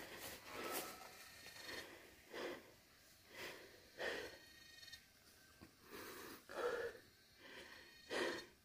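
A person breathing hard close to the microphone: a string of faint, uneven puffs of breath, roughly a second apart, out of breath after running.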